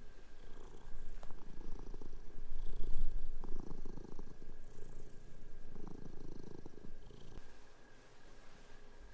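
A domestic cat purring in a few breath-long stretches of buzzing that stop about seven seconds in.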